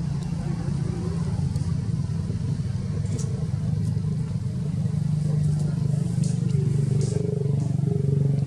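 A steady low engine hum that gets a little louder about halfway through, with a few faint clicks.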